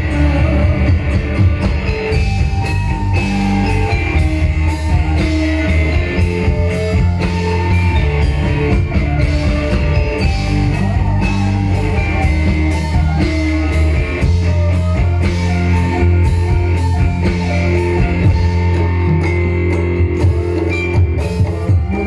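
Live amplified music from a band mixing Javanese gamelan instruments with a drum kit, playing a steady rhythmic passage with a heavy bass and regular percussion strikes.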